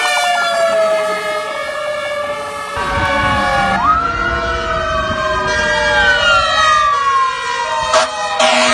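Fire truck sirens wailing in long, slow sweeps, first falling, then rising and falling again, with a passing truck's engine rumbling underneath from about three seconds in. A short sharp burst sounds near the end.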